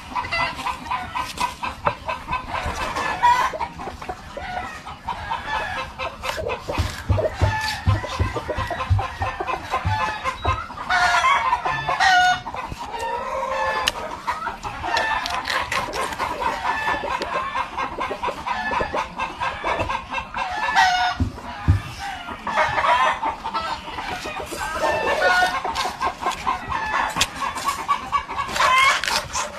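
Chickens clucking and a rooster crowing, over the repeated knocking strokes of a long bolo knife cutting a tuna into steaks on a wooden board.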